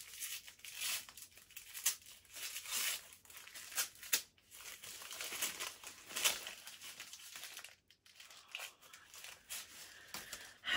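Hand-held wrapping crinkling and tearing as a small polished crystal is unwrapped, in irregular rustles and crackles with a short pause near the end.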